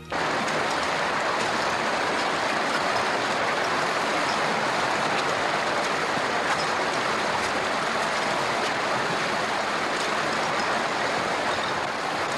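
Underground river rushing through a cave passage: a steady, continuous noise of churning water that starts abruptly.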